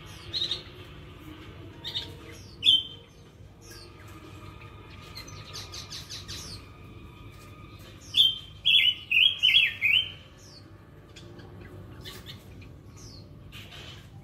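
Small cage birds in an aviary chirping: a few single loud chirps in the first three seconds, then a quick run of five loud, falling chirps about eight to ten seconds in, over fainter high twittering throughout.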